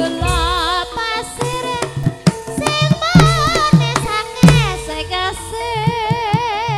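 Javanese gamelan music for tayub dance: a woman sings with a wide, wavering vibrato over sustained gamelan tones, with deep kendhang hand-drum strokes that drop in pitch near the start, about three seconds in and again about a second later.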